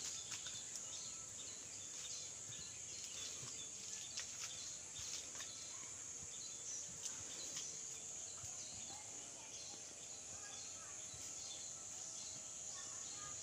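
Steady high-pitched insect drone, with a few light knocks in the first few seconds as green bamboo tubes are set upright against a wooden pole.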